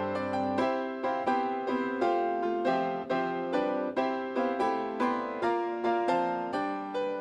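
Solo piano playing a slow, gentle piece after the service ends, a postlude, with chords struck about twice a second, each ringing and fading.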